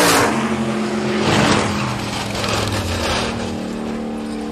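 Drag race car spinning out on the track: a loud rush of noise with an engine drone holding one steady pitch underneath.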